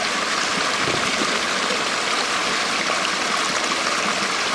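Small creek waterfall: water falling and rushing with a steady splashing hiss.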